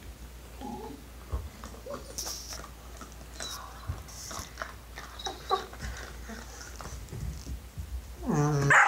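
Puppy and adult dog chewing and tussling over a hard chew bone, with scattered gnawing clicks and scuffles. A short, loud dog whine comes near the end.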